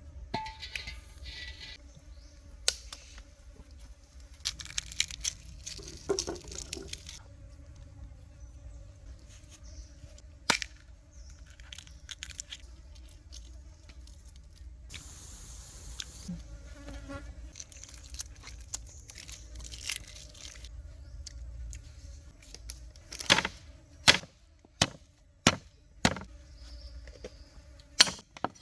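Insects buzzing steadily, with scattered clicks and rustles of handling. Near the end comes a run of sharp, evenly spaced knife chops on a board, a little under a second apart.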